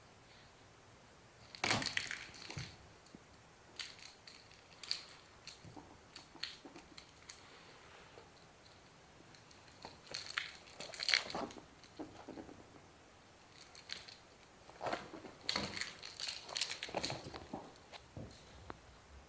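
Pet ferrets rummaging and scrabbling in something crinkly, giving irregular bursts of crinkling and crunching. Longer, louder bursts come about ten and fifteen seconds in.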